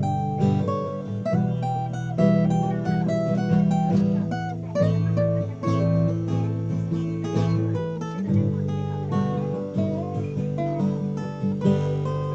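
A new acoustic guitar being played: a picked melody of separate notes over ringing bass notes, tried out for its tone.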